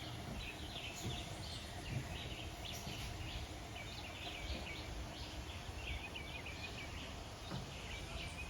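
Birds chirping and calling in quick, repeated short phrases, with a low rumble underneath.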